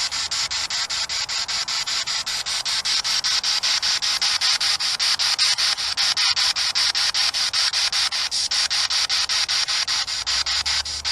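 Spirit box sweeping through radio stations: steady static chopped about seven times a second.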